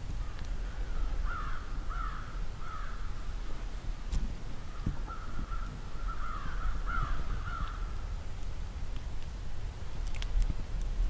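Crows cawing: three calls about a second in, then a longer run of calls from about five to eight seconds, over a low steady rumble.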